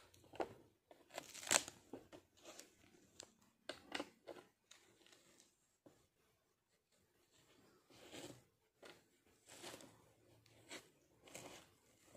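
Faint, irregular rustling and scratching with scattered soft clicks as a cat shifts about on bedding, the loudest scratch about a second and a half in.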